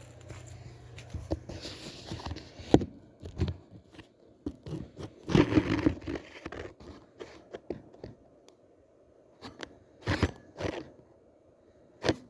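Irregular crunching and scraping, like footsteps and handling noise, loudest about five to six seconds in, with a few sharp clicks near the end. A low steady hum underlies the first three seconds and then stops.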